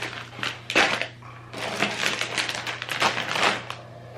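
Plastic snack packaging, chip bags among it, crinkling and rustling in quick irregular crackles as it is handled and lifted out of a box.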